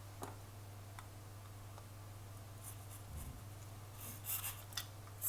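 Faint handling sounds of small plastic parts as a rubber-tyred robot wheel is worked onto its motor shaft: a few light clicks, a soft thump about three seconds in, then short scraping and rubbing near the end, over a low steady hum.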